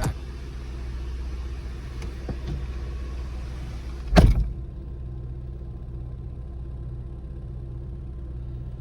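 Steady low rumble of a car, with one sharp thump about four seconds in.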